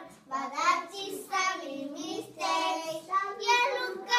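Children singing a melody together without accompaniment, in phrases with short breaks between them.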